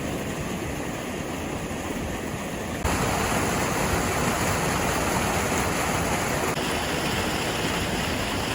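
Floodwater rushing: a steady wash of flowing water, louder after a cut about three seconds in.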